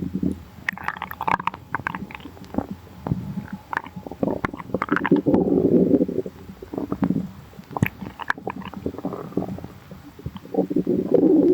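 Human stomach growling: a run of irregular gurgles and rumbles, the longest about four to six seconds in and another near the end, with short squelching clicks in between.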